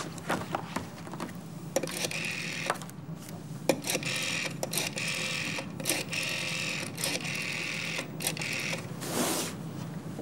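A telephone being dialled: about six short runs of rapid mechanical clicking, each a second or less, with brief pauses between them.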